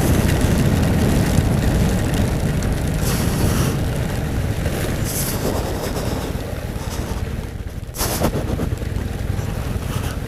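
Harley-Davidson Sportster 883's air-cooled V-twin running steadily under way on a wet road, mixed with wind noise on the microphone and a hiss of road spray. The overall sound eases off gradually, with a short sharp knock near the end.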